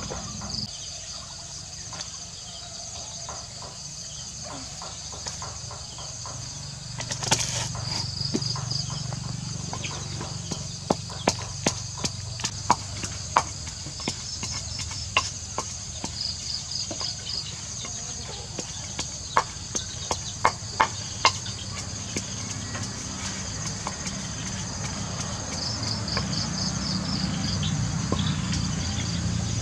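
Wooden pestle pounding in a mortar: a run of sharp, irregular knocks in the middle, over insects chirping steadily with short trills.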